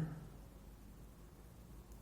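Faint steady room tone with a low hum; no distinct picking clicks stand out.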